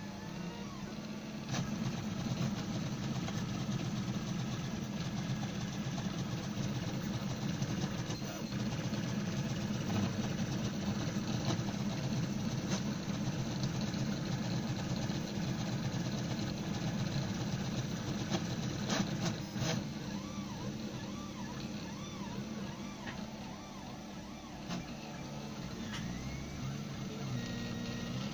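DIY CTC i3 Pro B Prusa-clone 3D printer printing, its stepper motors buzzing and whining in shifting pitches as the print head traces curved outlines, over a steady low hum. A few sharp clicks come about 19 seconds in.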